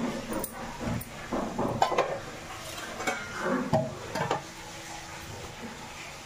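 Kitchen clatter: irregular clinks and knocks of steel pots, lids and utensils being handled, busiest in the first four seconds and quieter after.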